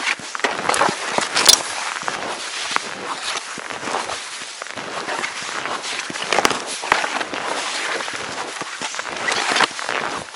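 Skis crunching and swishing through deep snow in steady strides, with a few sharp clicks.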